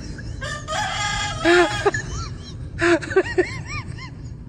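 A rooster crowing once, a call held for about a second and a half, followed by a string of short rising-and-falling clucks.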